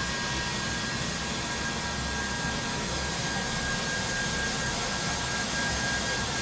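Hair dryer running steadily on long hair: a constant rush of air with a thin, steady whine.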